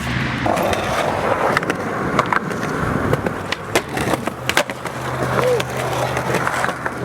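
A skateboard rolling, with steady wheel noise and several sharp clicks and knocks spread throughout.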